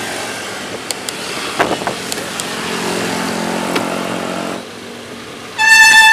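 City road traffic heard from a moving bicycle: a steady rush of passing motorcycles and cars, with an engine hum that grows for a couple of seconds and then drops off suddenly. Near the end a loud, steady horn tone sounds for more than a second.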